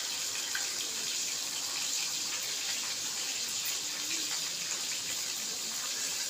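Pieces of marinated fish frying in hot oil in a kadhai: a steady sizzle.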